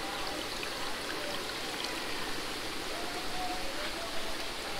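Steady rush of running water through a fish hatchery's flow-through tanks.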